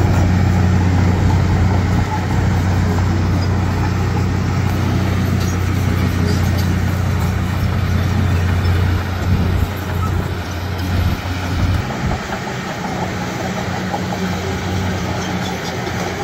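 Diesel engine of heavy earthmoving equipment running with a steady low hum, which drops away about three quarters of the way through as the engine's note changes.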